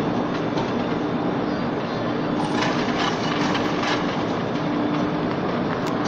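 A sled runs down a long metal summer slide, making a steady, loud rolling rumble with a low hum that comes and goes. A few sharp clicks come near the end.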